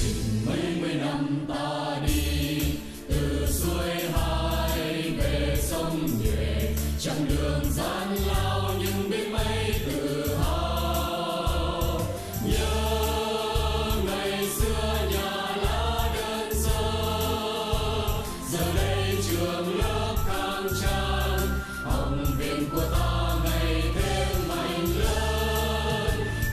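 A song: a group of voices singing over a full band backing with a steady bass line.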